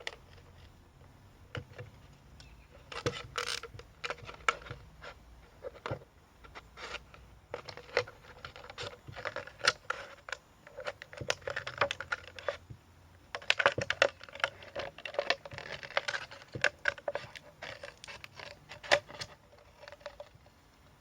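Scissors cutting through a thin plastic drinks bottle, with irregular snips and the plastic crinkling and crackling as it is handled.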